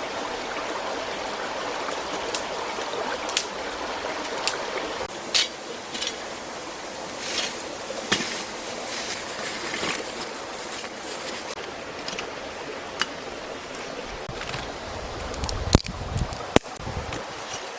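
Steady running water like a small stream trickling, with scattered sharp clicks and knocks over it and low rumbling of wind on the microphone in the last few seconds.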